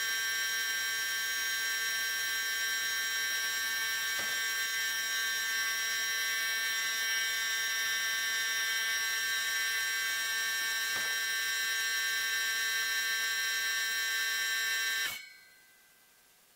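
Steady, high-pitched electric buzz made of several tones, with two faint clicks, cutting off suddenly near the end.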